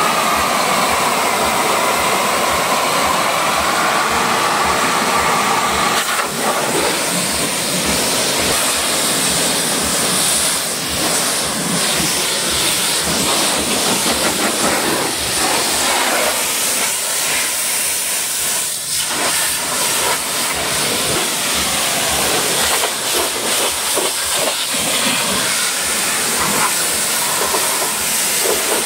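Pressure washer spraying a high-pressure jet of water onto a car's wheel and body panels: a loud, steady hiss.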